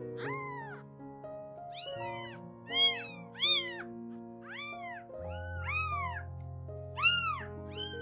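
Very young kitten mewing repeatedly: about ten short, high-pitched mews that each rise and fall, the loudest about three seconds in and about seven seconds in. Soft background music with sustained notes plays underneath.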